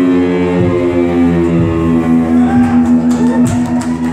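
Live heavy rock band playing: electric guitars hold a long chord over drum hits. Higher guitar notes bend in pitch over the top from about halfway through.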